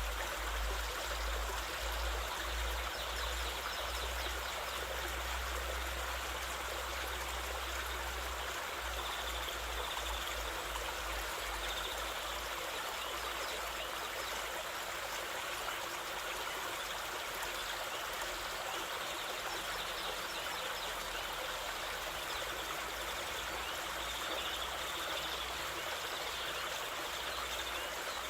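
Waterfall water rushing and splashing in a steady, even wash. A low rumble comes and goes through the first dozen seconds.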